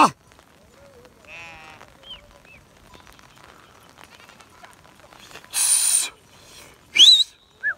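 Sheep and goats of a grazing flock bleating, with one quavering bleat about a second and a half in and a few short calls after it. About five and a half seconds in comes a loud hissing burst lasting about half a second, and near the end a short, sharp high call rising in pitch.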